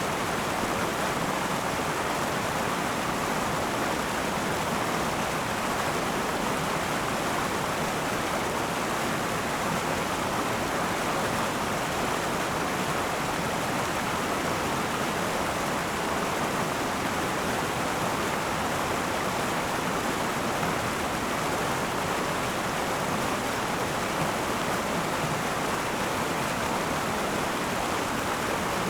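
Akan River flowing: a steady rush of water over rocks, even and unbroken, strongest in the middle range.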